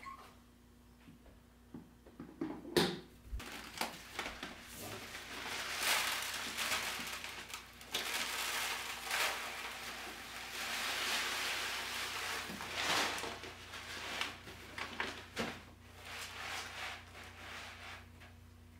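Cat litter being poured from a plastic bag into a plastic litter box, a long rustling hiss that rises and falls with the pour, with the bag crinkling. A knock about three seconds in comes before it.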